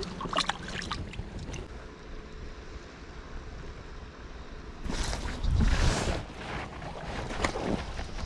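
Wind rumbling on the microphone over a pontoon boat on the water, with a few sharp handling clicks in the first two seconds. A louder rush of wind noise comes about five to six seconds in.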